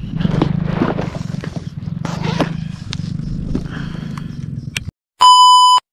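Rustling and scraping handling noise over a low steady hum, which cuts off abruptly. Near the end comes a single loud electronic beep, one steady tone lasting about half a second.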